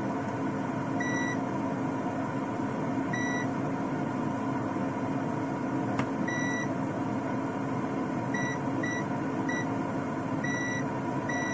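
Multimeter beeping in short, high-pitched tones, about eight times with the last one held longer, as the probes find a dead short across the buck-boost module's board, which is suspected to be a failed rectifier diode. A cooling fan runs steadily underneath.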